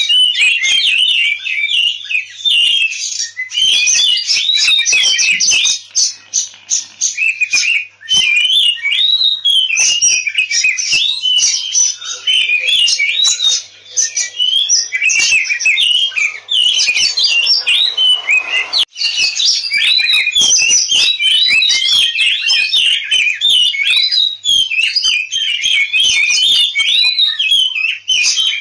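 Oriental magpie-robin (kacer) singing its agitated fighting song (ngobra), a fast, unbroken stream of varied whistles, chirps and harsh rapid notes.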